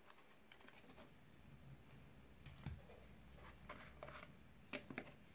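Faint handling sounds of an iPhone 11 box's cardboard and paper packaging: light taps and rustles as the inner insert and accessory tray are handled. There is a soft thump about halfway through and two sharp clicks near the end.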